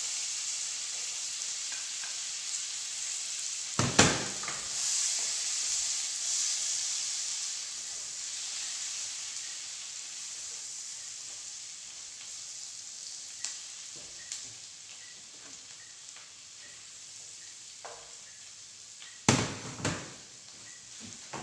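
Chopped onion sizzling in melted butter in a stainless steel pan while it is stirred with a wooden spoon; the sizzle is loudest at first and slowly dies down. Two sharp knocks stand out, about four seconds in and near the end.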